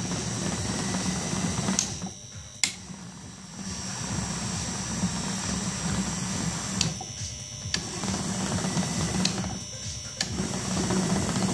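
12-volt DIY case tumbler, a windscreen-wiper gear motor turning a plastic drum on rollers, running with a steady hum. It stops and starts again three times, with a sharp click from the control-panel switch at each stop and restart.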